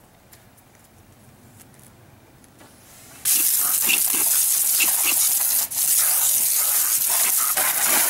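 Water spraying from a PVC-pipe car-wash wand onto a vehicle's side panels and wheel: a loud, steady hiss that starts suddenly about three seconds in and breaks off briefly near the middle.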